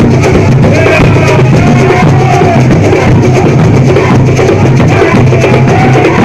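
Bumba-meu-boi percussion group of the zabumba style playing together: deep drums beating steadily under a dense, continuous clatter of smaller drums and rattles.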